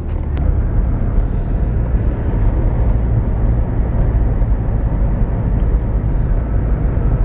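Car on the road: a steady, loud low rumble of engine and road noise.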